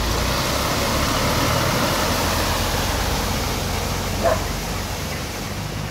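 Land Rover Defender 90 wading through a flooded ford: water rushes and splashes around its wheels over a low, steady engine hum. A single short, sharp sound stands out about four seconds in.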